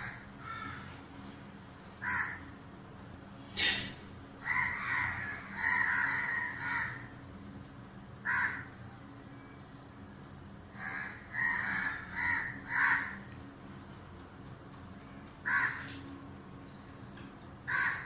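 Crows cawing: single caws and short runs of several in quick succession, with pauses of a second or more between them.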